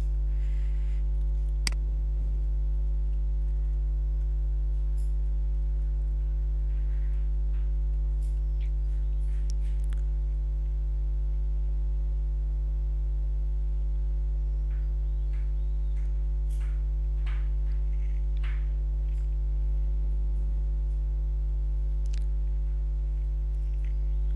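Steady electrical mains hum picked up by the recording microphone, a constant low buzz with a stack of overtones above it. A few faint short clicks come and go over it.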